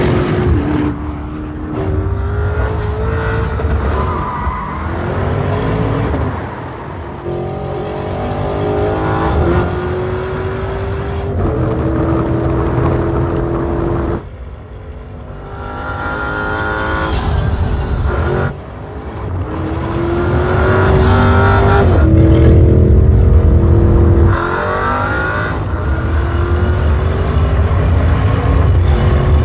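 Porsche Cayenne Turbo GT's 4.0-litre twin-turbo V8 accelerating hard, its pitch climbing through each gear and dropping at each upshift. Several runs are cut together, with brief dips in level between them.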